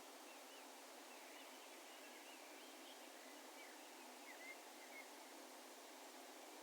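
Distant birds calling faintly: a scatter of short, high chirping notes over a steady low hiss of open-air background noise.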